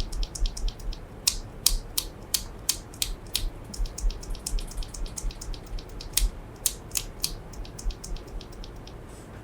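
Typing on a Leopold FC660M compact mechanical keyboard with OEM-profile keycaps: a steady run of key clacks at irregular spacing, several a second.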